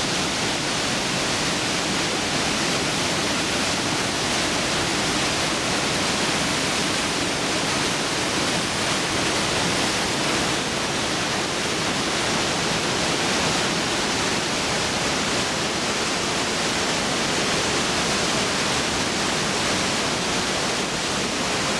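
Glacier-fed Trümmelbach Falls: meltwater rushing and churning through a narrow rock gorge, a loud, steady rush of water with no breaks.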